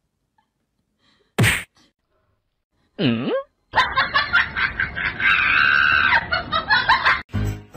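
A single sharp slap about a second and a half in, then a short cry that dips and rises in pitch, then several seconds of pulsing laughter.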